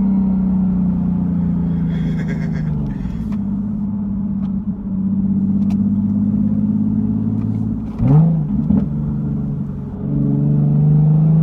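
Nissan 370Z's 3.7-litre V6 heard through a Tomei Expreme catback exhaust while driving. The note holds steady, drops a little about three seconds in, gives a quick rev about eight seconds in, then rises steadily as the car accelerates near the end.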